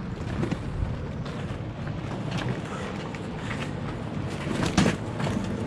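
Muffled rubbing and rustling of clothing against an action camera's microphone inside a pocket, with a few soft knocks, the loudest near the end.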